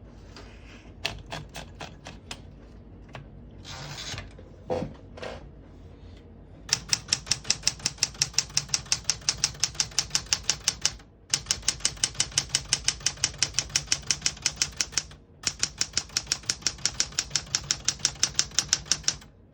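Smith-Corona Galaxie Twelve manual portable typewriter: a few scattered clicks, then, about seven seconds in, fast even typing at several keystrokes a second, broken by two brief pauses.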